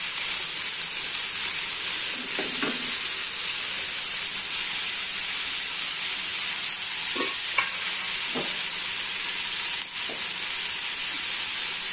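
Chopped onions, tomatoes and green chillies sizzling steadily in oil on a flat black griddle (tawa).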